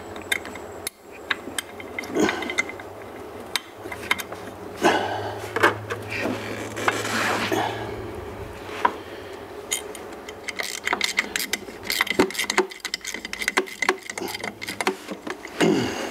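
Metal clicks, taps and scrapes of hand tools and parts as an adjustable flyweight is fitted into a Polaris RZR's primary drive clutch. The clicks come closer together over the last few seconds.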